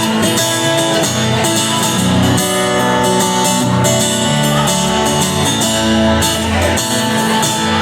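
Live country band playing an instrumental break between sung choruses, guitar to the fore over bass and drums.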